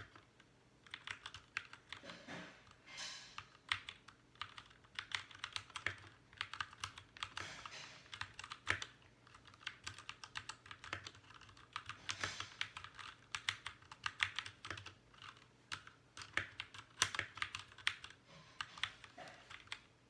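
Fast typing on a Royal Kludge RK61 60% mechanical keyboard: a rapid, irregular run of key clacks that starts about a second in, with short breaks between words.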